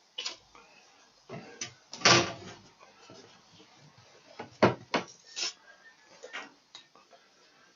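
Scattered knocks, clunks and rustling as a rag is folded and laid down and the cylinder parts are handled on a workbench. The strongest is a longer rustling scrape about two seconds in, then two sharp knocks a little after four and a half seconds.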